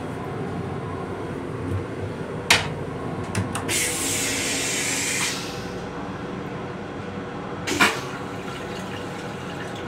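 Steady running noise of an M7 railcar heard inside its small restroom. About two and a half seconds in, the toilet seat clacks as it is lowered onto the stainless steel toilet, followed by a few small clicks and a hiss lasting about a second and a half. A second sharp clack comes near eight seconds.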